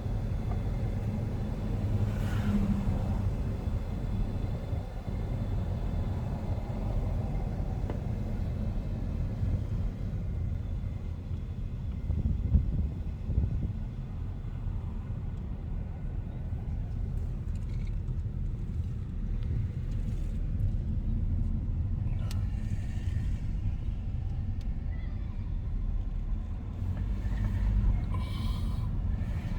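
A car driving: a steady low engine and road rumble, with a brief louder bump about twelve seconds in.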